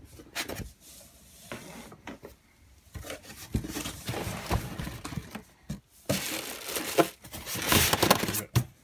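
Cardboard box and polystyrene foam packing being handled and shifted: irregular rustling, scraping and knocking, loudest in two stretches, midway and near the end.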